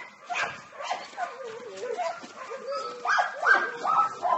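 A dog whining in wavering, gliding tones, with a run of louder, higher-pitched whining yelps about three seconds in.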